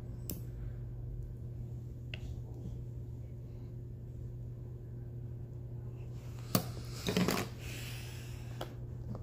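Small plastic clicks from handling a diamond-painting drill tray, resin drills and a drill pen, with a sharper click about six and a half seconds in and a brief rattle of drills just after it. A steady low hum runs underneath.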